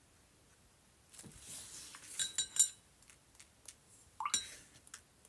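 Glass clinking and rattling in two short bouts, about a second in and again near four seconds in, with a light ringing after the strikes.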